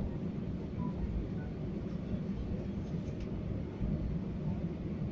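Steady low rumble of airliner cabin noise after landing, from the engines and air system heard from inside the cabin.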